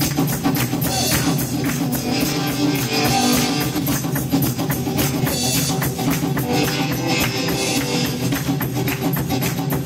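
Live church praise-band music with a hand tambourine shaken and struck in a steady rhythm over the band.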